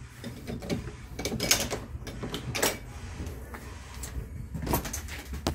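A series of knocks and rattles from the bus's glass driver's cab door being handled and opened, over a low steady rumble.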